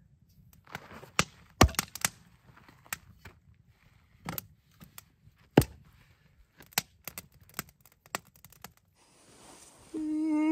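Campfire of split wood crackling, with sharp irregular pops and snaps. Near the end a short held vocal sound from a person that drops in pitch.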